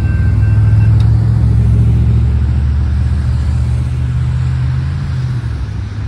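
Road traffic driving over the crossing close by: cars and a pickup truck passing in a steady low engine and tyre rumble, easing off slightly near the end.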